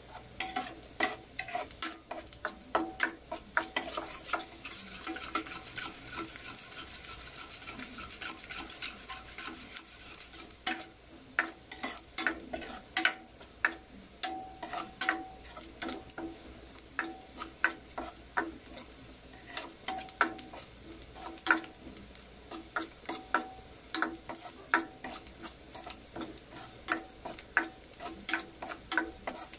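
Metal spatula scraping and clinking against a stainless steel wok, several knocks a second at an uneven pace, as finely chopped onion and garlic are stirred in oil, with a light sizzle underneath.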